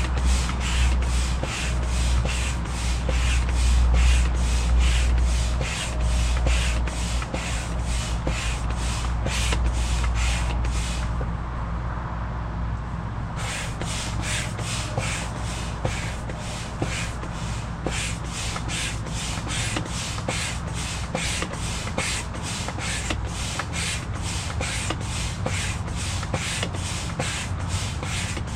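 Manual air pump being worked to inflate a raft chamber: a steady rhythm of air strokes, about two a second, with a short pause about halfway through before the pumping resumes.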